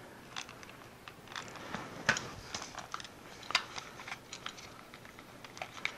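Scattered light clicks and taps of small parts being handled as a replacement pull-chain switch is fitted into a neon sign transformer.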